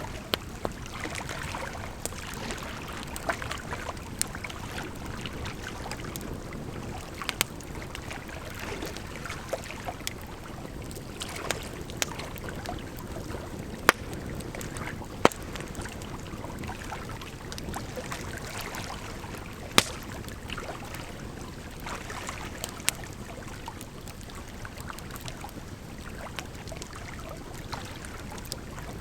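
Bonfire burning: a steady hiss with frequent sharp crackles and pops, a few of them louder snaps scattered through.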